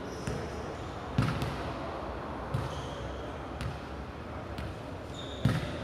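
A ball bouncing on a hard court floor: several irregular thuds about a second apart, with a few short high squeaks between them.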